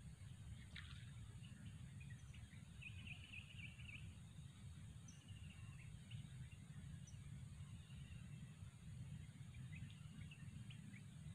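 Quiet rural outdoor ambience: a steady low rumble, with a few faint bird chirps, including a short trill of quick notes about three seconds in.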